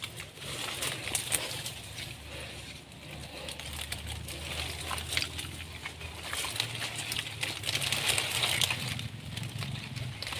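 Dry palm fronds and leaf litter rustling and crackling as they are pushed aside and stepped through, with many short sharp clicks.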